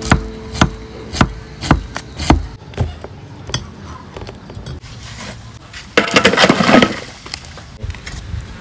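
Knife chopping on a wooden cutting board, sharp knocks about two a second that thin out to lighter, scattered taps. A louder burst of scraping noise comes about six seconds in and lasts about a second.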